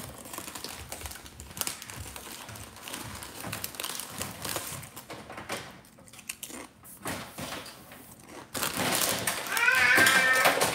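Faint clicks and rustles of plastic toys being handled on a wooden floor, then from about eight and a half seconds a louder stretch ending in a high, wavering cry.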